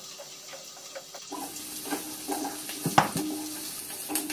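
Onions, carrots and capsicum frying in oil in a kadai and being stirred with a wooden spatula: a soft sizzle with scattered scrapes and knocks of the spatula on the pan, the loudest knock about three seconds in.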